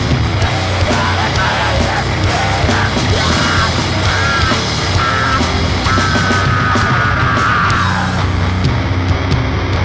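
Grindcore/powerviolence band recording: dense, distorted guitar, bass and drums played at full loudness, with screamed vocals. A long held scream or tone falls away about eight seconds in.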